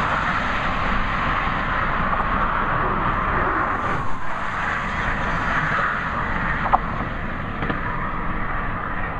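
Steady road traffic noise from cars crossing the bridge, an even rush with a low rumble, with a brief sharp sound about seven seconds in.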